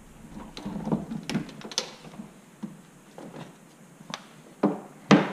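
Boat battery and its cables handled inside a plastic console locker as the battery is freed and lifted out: scattered clicks and rustles, then two heavy knocks near the end.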